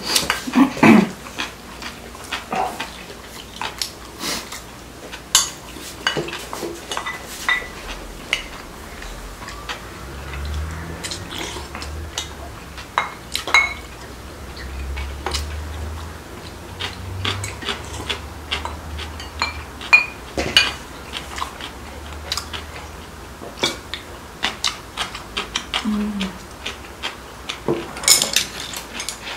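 Chopsticks and spoons clicking and clinking against bowls and plates in scattered, irregular taps as two people eat.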